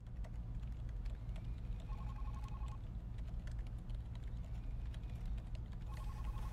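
Desk telephone ringing electronically: two short bursts of a fast-pulsing two-note trill, about four seconds apart, over a low room hum and scattered light clicks.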